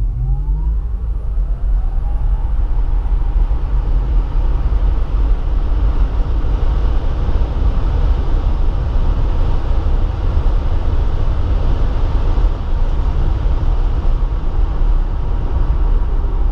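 Tesla Model 3 electric drive motor whining and rising in pitch under full acceleration, heard inside the cabin. Within about two seconds the whine gives way to loud, steady tyre and wind noise with a deep road rumble at highway speed.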